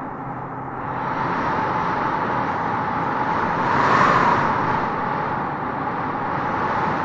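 Vehicle engine sound effect: a steady rushing engine noise that swells to a peak about four seconds in, then eases off.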